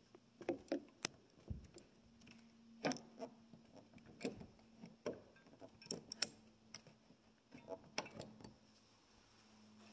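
Handling and small household noise: about a dozen scattered, irregular clicks and knocks over a faint steady hum that sets in about two seconds in.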